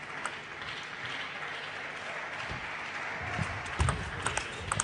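A steady hiss of arena crowd noise. From about three seconds in, a table tennis rally begins: sharp clicks of the celluloid-type plastic ball off the rubber-covered rackets and the table, about two or three a second, with low thuds of the players' footwork on the court floor.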